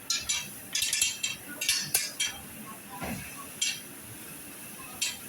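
Metal utensils clinking and scraping against metal in a quick, irregular run of sharp strikes, with one more strike a little later and then a quieter stretch.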